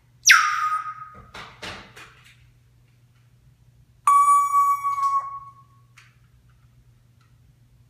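African grey parrot whistling: a sharp whistle that swoops steeply down and is held for about a second, a few short rough calls, then about four seconds in a long, steady, beep-like tone held for nearly two seconds.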